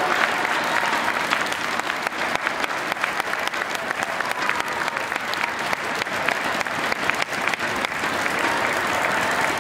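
Spectators applauding: many hands clapping at once in a dense, steady run of overlapping claps.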